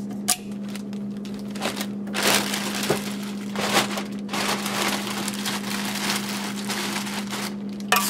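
A large clear plastic bag rustling and crinkling in uneven bursts as it is pulled down over a small espresso machine and gathered closed at the top by hand.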